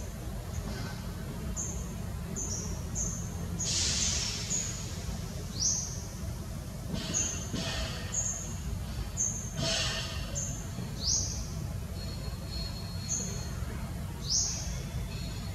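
Birds chirping in short, high notes, some sweeping upward, repeated every second or so over a steady low rumble, with a few brief rustling noises.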